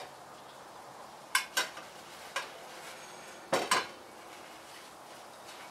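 Metal utensils clinking against a plate and a small metal tray: a few sharp clinks, two close together, a single one, then a louder pair.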